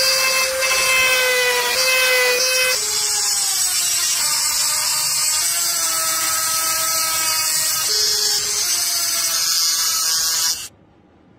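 High-speed rotary tool with a small burr grinding an engraved line pattern into a metal disc: a steady high whine whose pitch sags a few times as the bit bears into the metal. It cuts off suddenly near the end.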